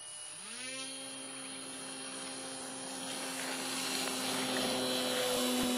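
RC model airplane's motor and propeller spinning up about a third of a second in, then holding a steady pitch and growing gradually louder.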